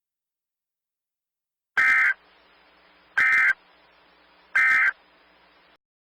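Emergency Alert System end-of-message signal: three short, identical bursts of SAME digital data tones, about a second and a half apart, closing the alert.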